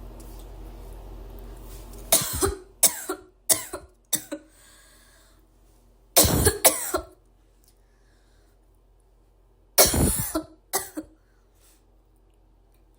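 A girl coughing in three fits: a run of about five coughs starting about two seconds in, two more a few seconds later, and another cluster of three near the end. A steady low hum comes before the first fit and stops as the coughing begins.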